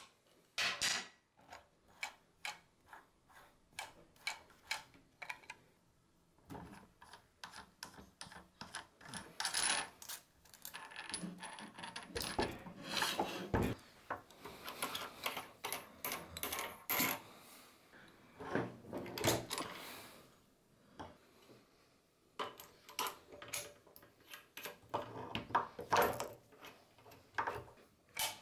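Metal parts of a Graco airless sprayer's ProConnect pump clicking, clinking and knocking as the pump is unlatched, twisted off and swapped by hand, with rubbing noises in between and a heavier knock about halfway through.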